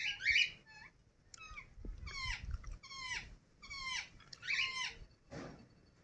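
Indian ringneck parrot calling: a quick string of short, shrill calls, each sliding down in pitch, about two a second, loudest at the very start.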